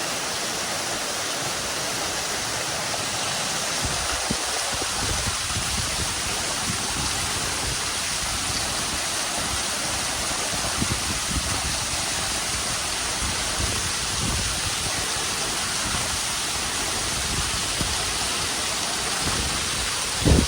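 Shrine waterfall pouring onto rocks: a steady, even rushing of falling water, with a fluctuating low rumble under it from about four seconds in.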